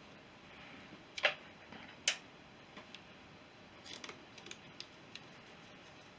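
Irregular sharp clicks and taps of hand tools on metal during motorcycle strip-down work: two louder clicks in the first couple of seconds, then a cluster of lighter ones a little later.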